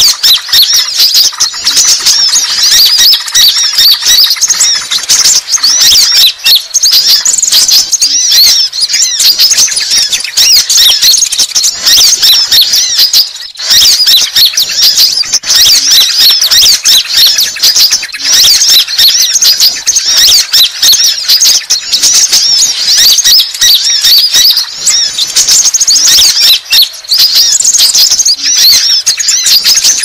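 Sunbirds twittering in a dense, unbroken run of rapid, high-pitched chirps, with one brief break about midway. It is a lure (pikat) recording of sunbird song.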